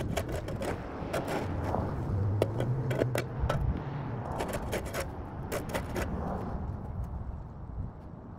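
Scrapes and knocks of a shovel and footsteps on dirt and grass, with a car driving past on the street about halfway through.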